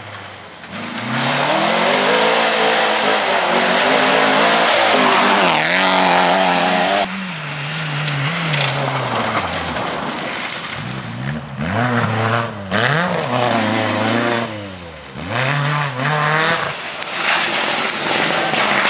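Rally cars passing one after another at full attack. Their engines rev hard, with the revs climbing and dropping several times through gear changes and lifts. Tyres hiss and throw up dirt and gravel, and the sound cuts abruptly from one car to the next, clearly about 7 seconds in.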